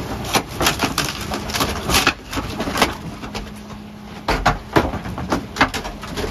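Wooden furniture cracking and splintering as it is crushed by the compaction plate in the hopper of a Faun Variopress refuse truck body. The sharp cracks come irregularly, the loudest a little past halfway, over a steady mechanical hum.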